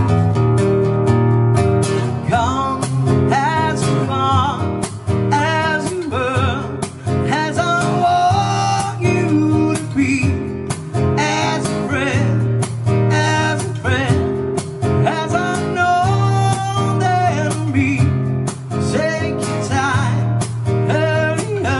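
A song with acoustic guitar strumming and a singer's voice coming in about two seconds in.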